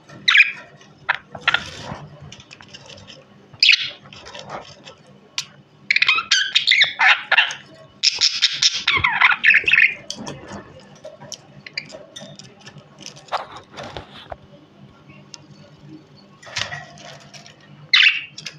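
Budgerigar chirping and chattering in irregular bursts of quick chirps, the longest and loudest run from about six to ten seconds in.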